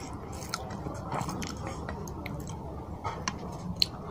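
Wet chewing as rice and fish curry are eaten by hand, with the soft squish of fingers working curry-soaked rice and many small clicks; one sharp click near the end.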